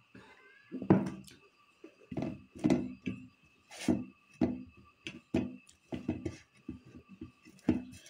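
Close-up eating sounds: rice and curry being chewed, and fingers scraping and mixing rice on a steel plate, in irregular bursts about every half second to a second.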